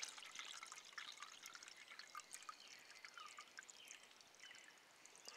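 Faint trickle of water pouring from a plastic water bottle into a metal cook pot, filling it. The pour tapers off near the end.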